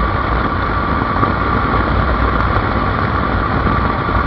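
Bajaj Avenger motorcycle cruising at about 95 km/h: steady engine drone mixed with rushing wind and road noise, unbroken.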